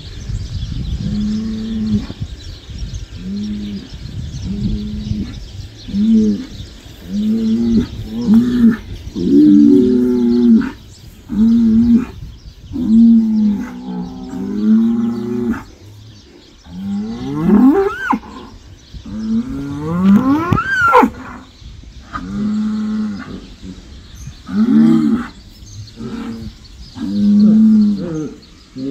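Bulls bellowing over and over in short, low calls about once a second. Two calls past the middle climb steeply in pitch to a high squeal.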